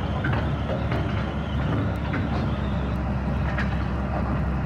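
Diesel engine of a SANY SR150C crawler rotary drilling rig running steadily under load as the rig drives down off a lowboy trailer on its tracks, with a few faint clicks.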